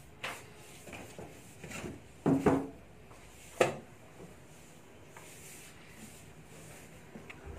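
Wrapped packs and trays being pushed and shifted inside a horizontal steam autoclave's chamber: rubbing and a few knocks. The loudest are a pair of knocks about two and a half seconds in and a sharp knock about a second later.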